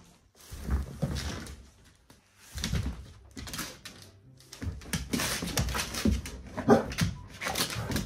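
Black plastic trash bag crinkling and rustling in bursts as a golden retriever noses and paws at it, with a short dog whimper near the end.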